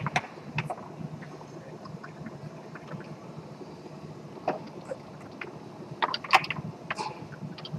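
Tornado foosball table in play: sharp knocks of the ball against the plastic men and table walls, and rods clacking, sparse at first, then a quick flurry of knocks about six seconds in. A steady low hum runs beneath.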